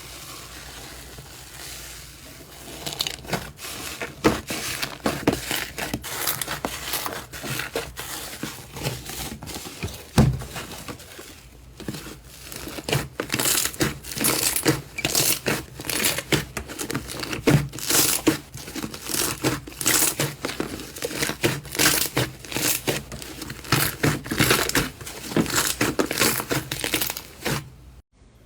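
Slime being squeezed and pressed, giving a dense run of crinkly crackles and pops that starts about two seconds in and cuts off abruptly near the end.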